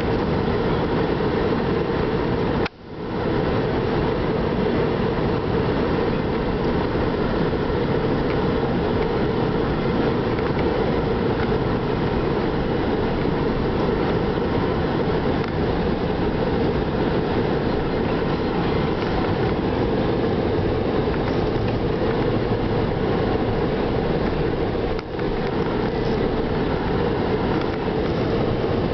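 Steady vehicle noise inside a police patrol car driving through a blizzard, cutting out briefly about three seconds in.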